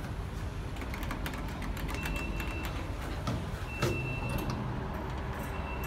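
Elevator at a landing with its door open: a steady low hum and light clicks, and a short high beep that sounds three times.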